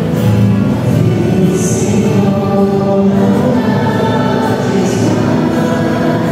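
Choir singing a hymn with accompaniment, in held notes that change every half second or so.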